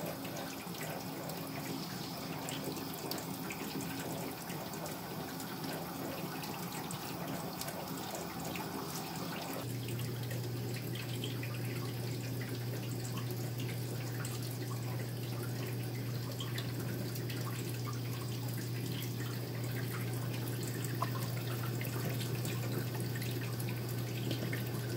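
Kitchen tap running into a stainless steel sink, with scattered drips and small splashes. About ten seconds in the sound changes and a steady low hum joins it.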